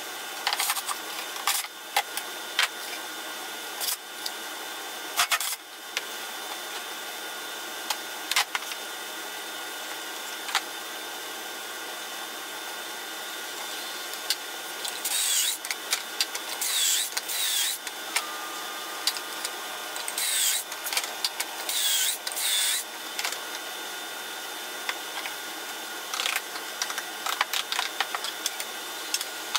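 Cordless drill boring pocket holes in a pine board held in a Kreg pocket-hole jig: a handful of short, loud whirring bursts midway through, each winding down in pitch as the trigger is let go. Scattered clicks and knocks come from clamping and handling the board and jig.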